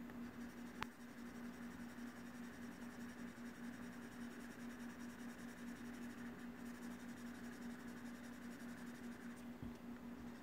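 Faint stylus strokes on a tablet's glass screen over a steady low hum, with a single sharp click about a second in.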